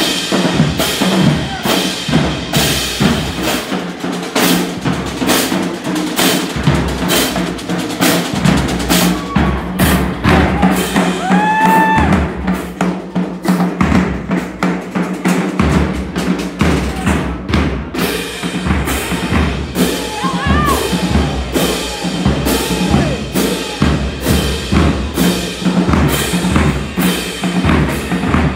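Marching band drumline playing a fast breakdown cadence: snare drums, bass drums and crash cymbals hit in a steady, driving rhythm.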